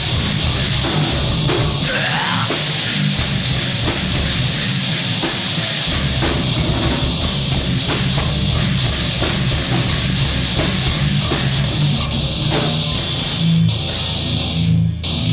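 Live rock band playing loudly: electric guitar and drum kit, with the recording distorted by mic clipping. There is a brief drop in level just before the end.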